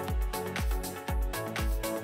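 Electronic background music with a steady kick drum, about two beats a second.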